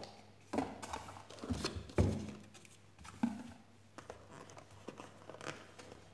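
Hands handling a cardboard phone box and its tray: a run of light knocks, clicks and rustles, the loudest about two seconds in.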